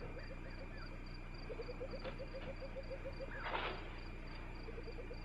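Faint night ambience of small animal calls: a quick run of low chirps, about five a second, over a faint pulsing high trill, with a brief rustle about three and a half seconds in.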